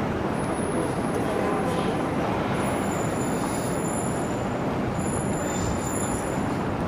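Steady city traffic noise: an even, unbroken background din of road traffic.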